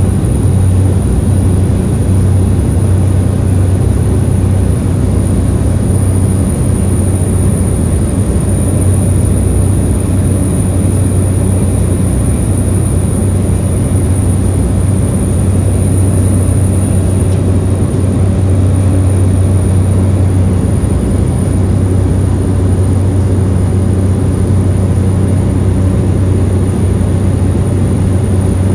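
Cabin noise of a small high-wing propeller aircraft during its takeoff roll and climb-out: a loud, steady engine and propeller drone with a deep hum, and a thin high whine that fades about two-thirds of the way through.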